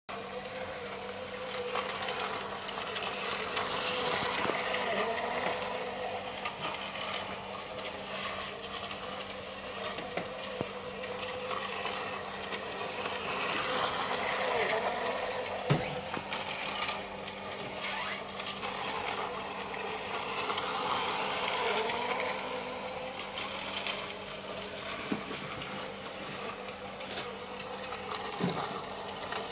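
Small electric motor and gears of a battery-powered toy train whirring steadily, its wheels rattling over plastic track. It grows louder and softer in slow swells as the train comes round the loop.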